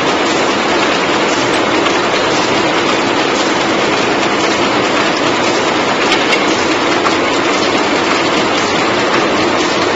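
Automatic chewing gum wrapping machine running at speed: a loud, steady, dense mechanical clatter of rapid clicks from its feed, folding head and rotary turret.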